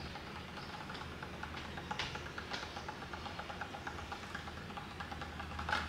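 A drumroll: rapid, light, evenly paced taps, a little louder about two seconds in and just before the end, over a low steady hum.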